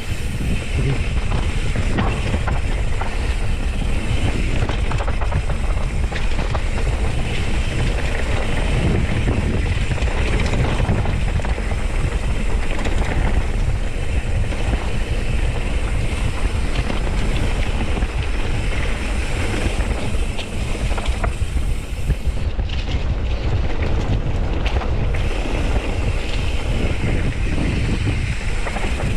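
Mountain bike riding fast down a dirt trail: wind buffeting the microphone over the sound of the tyres rolling on dirt and dry leaves, with the bike rattling over bumps.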